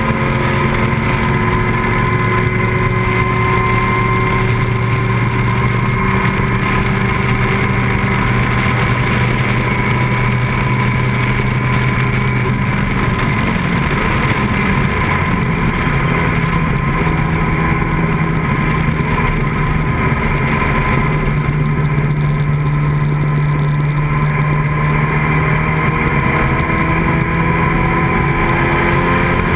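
Engine of an open-cockpit vintage sports racing car running hard at speed, heard from on board. The engine note holds fairly steady, changes pitch about halfway through and climbs slowly near the end.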